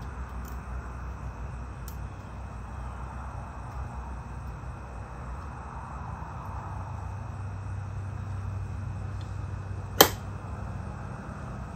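Parts being fitted by hand onto the end of a Mercury outboard crankshaft: quiet handling over a steady low hum, with one sharp click about ten seconds in.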